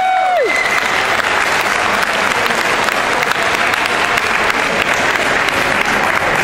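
A hall audience applauding steadily, greeting a dog-show award.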